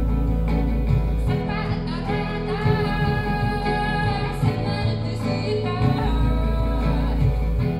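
Live song: a woman sings into a microphone over acoustic guitar, with a deep sustained bass note at the start and again near the end. The singing comes in about a second and a half in.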